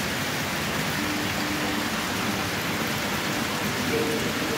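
Fresh water running continuously into and through trout-rearing tubs: a steady, even rush of splashing water.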